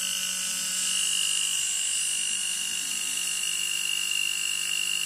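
Hand grinder's 220 V AC motor running at speed with a steady high whine and hiss. It is the rough motor noise that fresh oil on the bearings has not much reduced, though it now sounds a little smoother.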